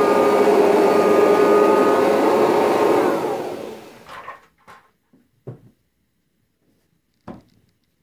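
Kirby Heritage 2 upright vacuum's motor running with the Rug Renovator shampoo attachment, then switched off about three seconds in, its whine falling as it spins down. A few short knocks follow.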